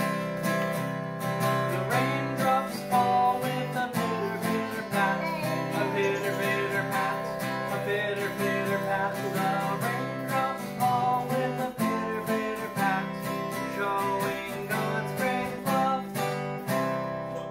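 Acoustic guitar strummed in a steady rhythm, with voices singing a children's song over it.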